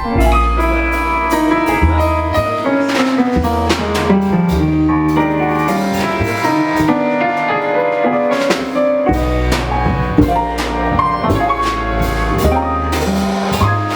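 Live jazz band playing: keyboard chords and melody over low bass notes, with a drum kit keeping time.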